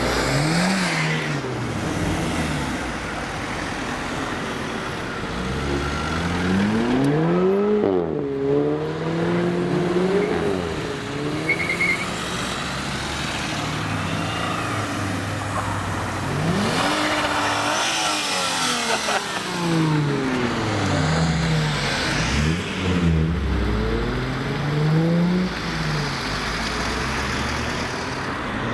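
Alfa Romeo cars driving off one after another, their engines revving up and easing off, the pitch rising and falling with each car.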